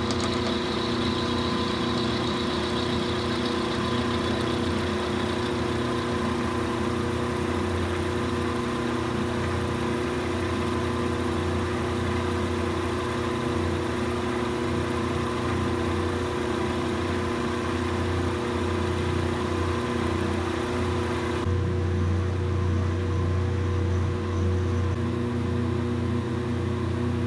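Milling machine running with a 5/16-inch end mill cutting a slot into a metal bar: a steady motor hum under the noise of the cut. About 21 seconds in, the higher cutting noise falls away and the low hum grows stronger.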